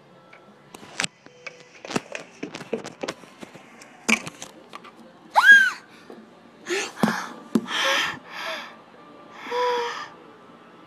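Clicks and taps of plastic Littlest Pet Shop figures being handled. These are followed by a child's voice making a short high cry that rises and falls, then several breathy gasp-like sounds.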